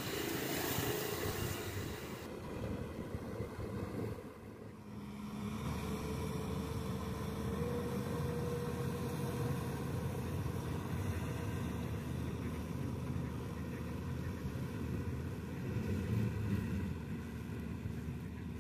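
Diesel engine of a four-wheel tractor running steadily as it pulls a rotary tiller through a flooded rice paddy, dipping briefly about four seconds in.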